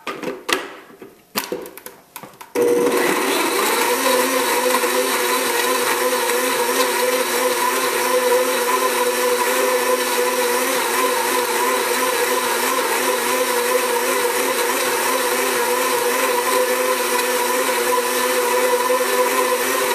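A few knocks as the lid is fitted onto a Blendtec blender jar, then about two and a half seconds in the blender's motor starts suddenly and runs at a steady speed, blending half a pineapple with a glass of water.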